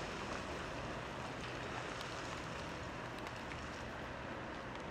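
Volvo L260H wheel loader's diesel engine running steadily under load as it moves with a full bucket of blasted rock, with a few faint knocks.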